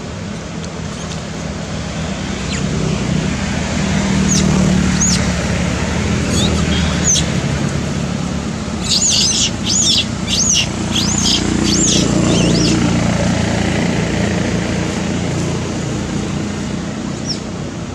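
Birds chirping: a few scattered single chirps, then a quick run of about a dozen chirps lasting three or four seconds near the middle. A low rumble of passing traffic lies underneath and swells twice.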